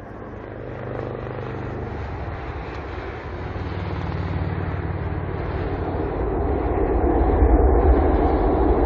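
Boeing 747 jet engine and airframe noise, a steady rushing sound with a low rumble that grows steadily louder.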